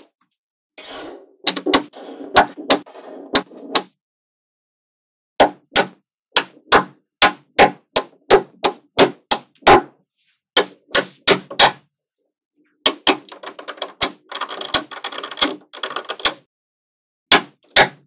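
Magnetic balls clicking and snapping together as small blocks of them are pressed onto a structure: a run of sharp clacks, about two a second through the middle, with stretches of rattling clatter near the start and again about two-thirds through.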